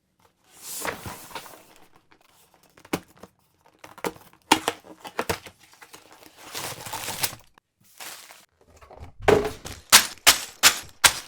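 Handling of LEGO pieces and their packaging: plastic bags crinkling and tearing, with scattered sharp clicks of plastic bricks, then a quick run of loud clicks and clatter near the end.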